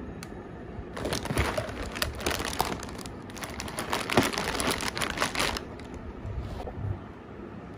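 Plastic pasta packet crinkling as it is handled and turned over, in two bouts of crackling: the first about a second in, the second ending a little past halfway.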